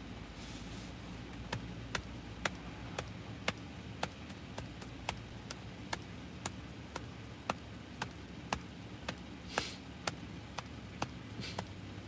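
Car engine idling low, heard from inside the cabin, with an even ticking about twice a second, and two short hisses near the end.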